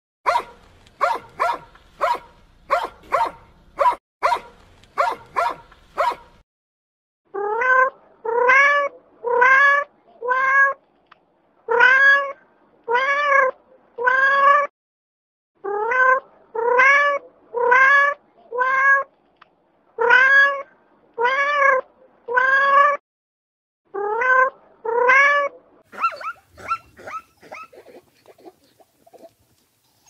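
A dog barks about a dozen times in quick succession, then after a short pause a cat meows over and over, roughly one meow a second in runs of three or four, each rising in pitch and levelling off. A few fainter, shorter calls fade away near the end.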